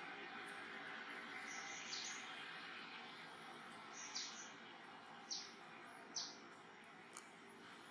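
A bird giving a short, high call that falls in pitch, repeated four or five times and loudest in the second half, over a faint steady background hiss.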